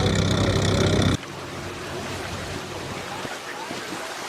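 A heavy engine running steadily, cut off abruptly about a second in, followed by a quieter, steady rushing noise.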